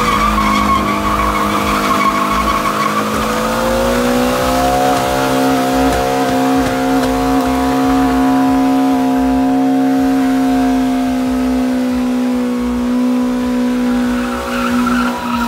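Toyota Altezza sedan doing a burnout: its engine is held at high revs with the rear tyres spinning and squealing on the tarmac. The revs climb a little about four seconds in and then hold steady until the sound cuts off at the end.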